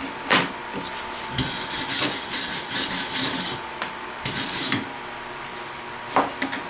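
Hand scraping strokes on metal, a rasping back-and-forth about three strokes a second for a couple of seconds, then a shorter second run; a sharp knock comes just before and another near the end.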